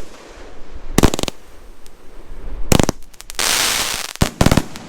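A 37-shot 'American Honor' firework cake firing its shots. There are sharp bangs about a second in and again near three seconds, then a short spell of hissing crackle, then a quick run of bangs near the end.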